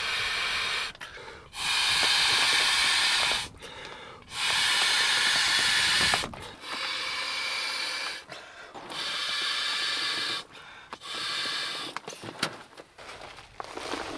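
Canoe flotation airbags being blown up by mouth: a series of long, hissing breaths of one to two seconds each, with short pauses for breath between them.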